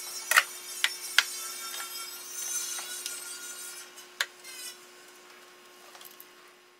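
Needle-nose pliers clicking and scraping on the plastic locking clip of a wiring-harness connector while squeezing it to release the plug. There are about six sharp, irregular clicks, the loudest in the first second and a half, over a faint steady hum.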